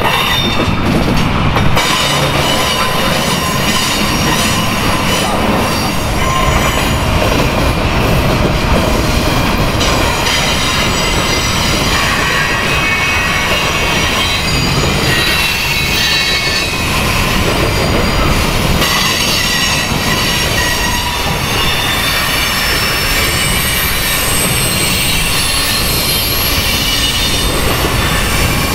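Freight train of flatcars loaded with steel pipe rolling past close by: a steady rumble of steel wheels on the rails, with high-pitched wheel squeal running through it.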